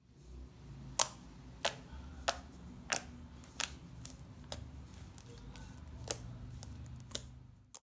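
Glittery homemade slime being squeezed and played with by hand, giving sharp, irregular clicks and pops about once or twice a second over a faint low rumble.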